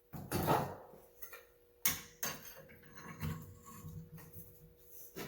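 A half-inch Crescent wrench being worked on a piece of square steel key stock: a string of metal clinks and scraping, with a sharp knock about two seconds in.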